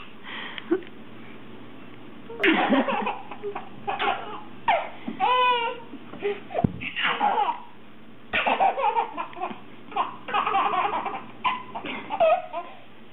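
Baby laughing in repeated bursts with short breaks between them, starting about two and a half seconds in.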